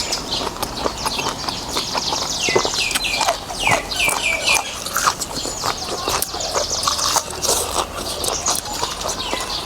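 Close-miked eating: a stream of wet clicks from chewing and slurping noodles. Birds chirp in the background, with a run of quick falling chirps about three seconds in.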